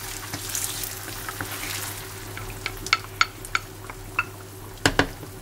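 Cooking cream poured onto fried bacon and ham in a hot non-stick frying pan, sizzling and fading in the first couple of seconds while a wooden spatula stirs it. Light taps of the spatula against the pan follow, with two louder knocks near the end.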